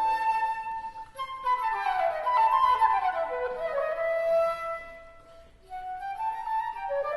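Background music led by a flute, playing a melody with falling runs, which briefly fades out about five seconds in before the tune resumes.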